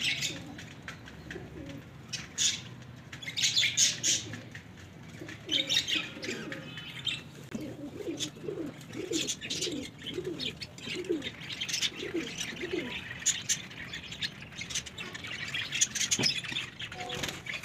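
Domestic pigeons cooing, a run of repeated coos in the middle, over scattered high chirping from small birds feeding among them.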